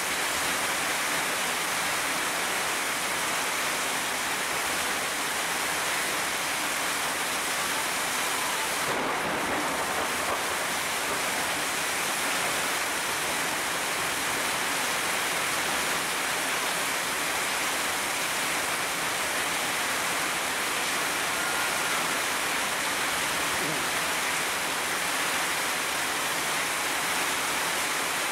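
Heavy rain pouring steadily on leafy trees: a dense, even hiss.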